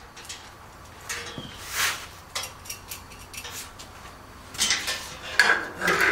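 Small metal hardware clinking and clattering as it is handled: scattered light knocks and rattles, busier near the end.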